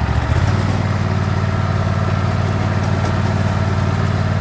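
Husqvarna LGT2654 lawn tractor engine running under the rider. It speeds up about half a second in, then runs steadily as the tractor drives across the lawn.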